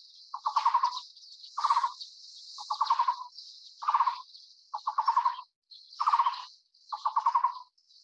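Taiwan barbet calling: a low, rapid trilled note repeated evenly about once a second, seven times, over a high hissing buzz.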